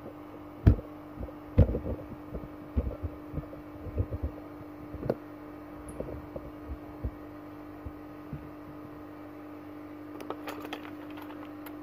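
A steady low electrical hum at one pitch, with irregular dull knocks and bumps of handling, mostly in the first half, and a few light clicks near the end.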